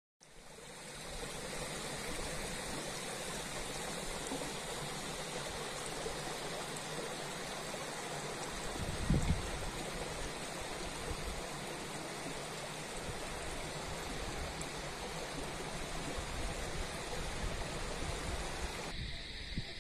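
Steady rushing of flowing water, like a stream, fading in over the first second, with a single low thump about nine seconds in.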